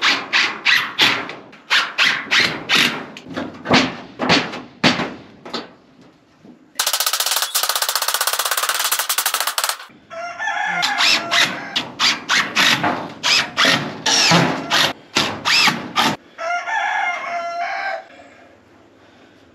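Chickens clucking and a rooster crowing near the end, with a cordless impact driver rattling for about three seconds in the middle.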